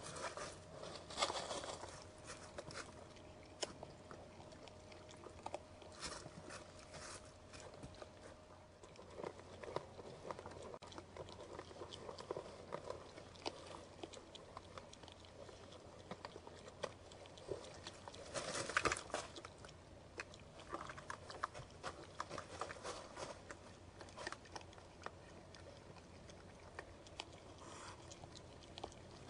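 Irregular crunching and rustling from a white-tailed buck moving in dry leaves close to the trail camera, louder about a second in and again around the middle.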